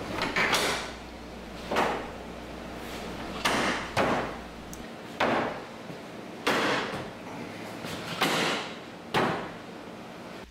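Plastic retaining clips of a GMC Savana's front grille snapping into the van body as the grille is pressed home by hand. About eight sharp snaps and knocks come one after another, roughly a second apart.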